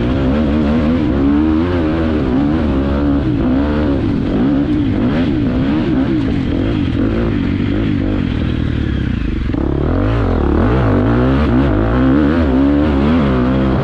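Motocross bike engine revving under hard riding, its pitch rising and falling with throttle and gear changes. It eases off for a moment around the middle, then pulls hard again.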